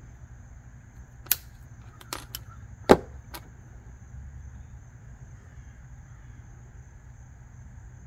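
A handful of sharp snips and clicks from small side cutters trimming the stranded end of a wire, the loudest about three seconds in, over a low steady hum.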